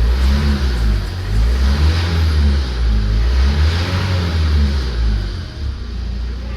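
Tata Safari Storme's 2.2-litre VariCOR diesel engine running after its injector wiring fault (code P0203) was repaired, its speed rising and falling as it is revved, then settling steadier near the end; it runs without the earlier misfire.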